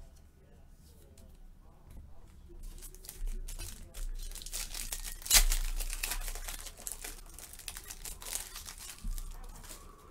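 Foil trading-card pack wrapper being torn and crumpled by hand: a run of crackling and crinkling that starts a couple of seconds in, with the loudest crackle about halfway through.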